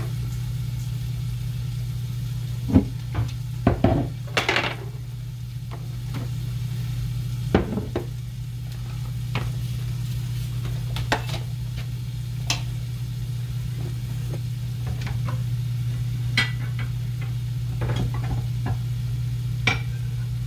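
Occasional clinks and knocks of pans and kitchen utensils, a cluster of several a few seconds in and single ones after, over a steady low hum.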